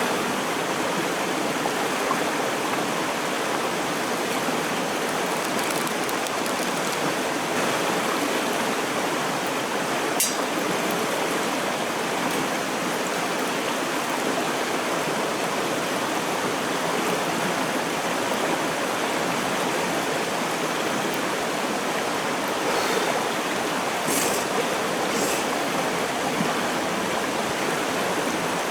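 A shallow stream rushing steadily over rocks, with a few faint high ticks now and then.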